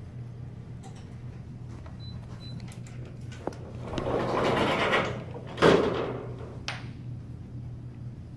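Something sliding with a rush of noise for about a second and a half, stopped by a sharp bang, with a lighter click a second later and a few small clicks around it. A steady low hum runs underneath.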